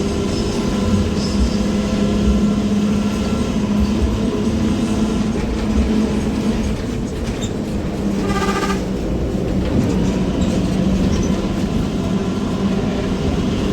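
Harapan Baru intercity bus's growling ('ngorok') racing exhaust heard from the rear seats inside the cabin: a steady, loud, deep drone as the bus drives. A brief tone sounds about eight seconds in.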